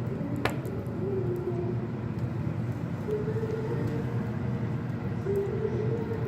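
Wood fire burning under a cast-iron cauldron: a steady low rumble with a sharp pop about half a second in and a few fainter crackles.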